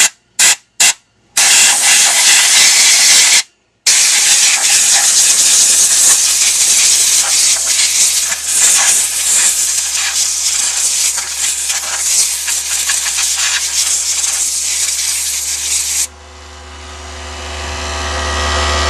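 Compressed air hissing from a blower nozzle as it blows dust out of an electric fan motor: a few short blasts, then a long continuous blast that stops about 16 seconds in. A low steady hum from the small electric air compressor starts a few seconds in and grows louder once the air stops, as the compressor recharges its tank.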